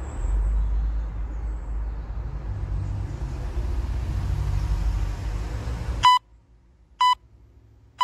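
Steady low background rumble that cuts out about six seconds in, followed by short electronic timer beeps about a second apart, an interval timer counting down the end of the set.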